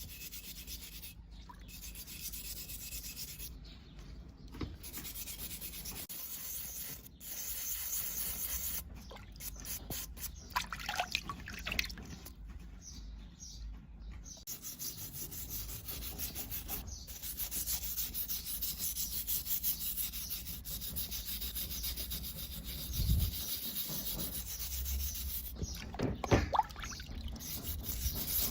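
Abrasive being rubbed by hand over the rusty metal of a vise in repeated rasping strokes, coming in uneven runs with short pauses.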